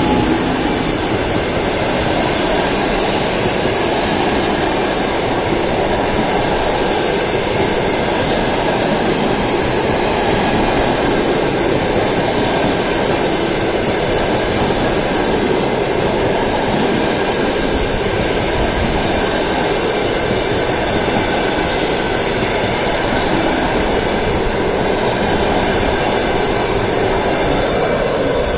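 Sleeper coaches of a long-distance passenger train rolling past at speed close by: a loud, steady rumble of wheels on the rails.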